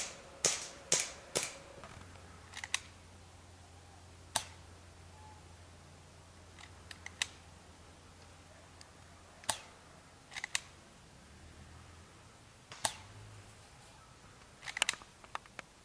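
Scattered shots from airsoft guns, sharp single pops. A quick run of four in the first second and a half, then single and paired shots every few seconds, some fainter than others, with another quick cluster near the end.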